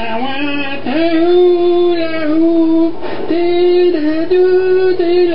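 A single voice singing a slow melody in long held notes that step up and down about once a second, with no instruments heard.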